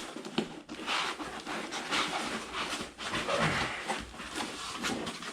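A dog panting, a steady run of quick breaths.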